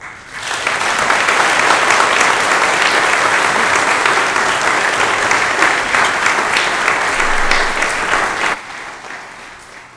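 Congregation applauding, a dense clapping that swells just after the start, holds steady, and dies away about eight and a half seconds in.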